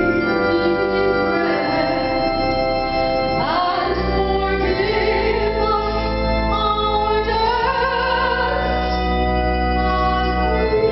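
Organ playing held chords with voices singing along, a bass note entering about four seconds in.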